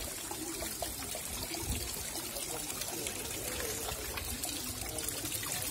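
Water from a small decorative garden rock fountain, trickling and pouring steadily into its pool.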